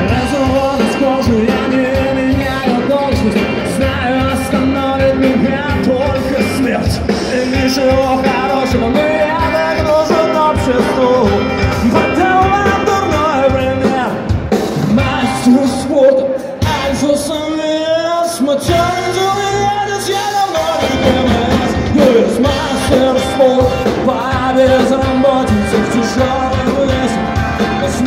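Live rock band playing a song with sung vocals over electric guitars, bass guitar and drum kit. About sixteen seconds in, the bass and drums drop out for a few seconds, then the full band comes back in.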